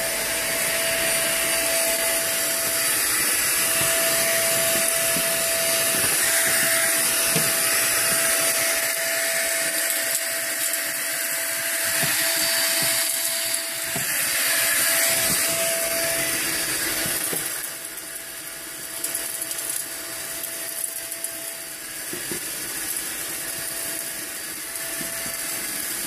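Monster handheld vacuum running with its hose and crevice tool attached: a steady motor whine over a rushing hiss of air drawn through the nozzle, at full suction. The sound drops somewhat about two-thirds of the way through.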